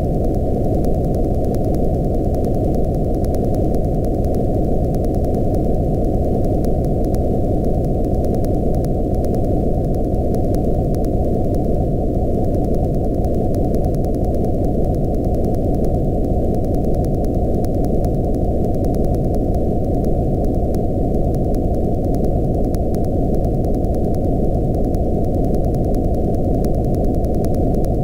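Steady, loud electronic noise: a dense low rumble cut off sharply above a low-mid pitch, with a few faint tones gliding slowly downward through it.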